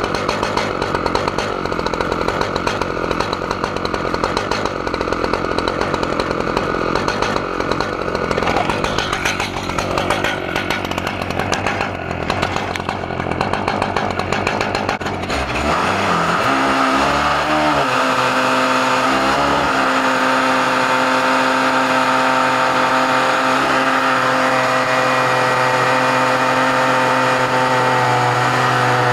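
Stihl MS880 two-stroke chainsaw on a chainsaw mill, running under load as it rips a 32-inch oak log lengthwise. About halfway through the sound changes: the engine note turns clearer and steadier after a brief wavering in pitch.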